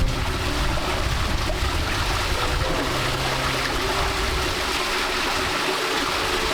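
Forest stream water running and trickling, a steady rushing sound.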